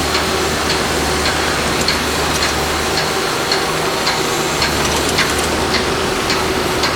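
Construction-site noise: a steady rumble of machinery with sharp knocks at an even pace, about two a second.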